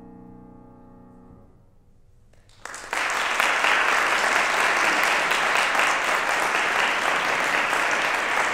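The last chord of a Steinway grand piano dies away, and after a brief hush an audience bursts into applause about three seconds in, which then carries on steadily.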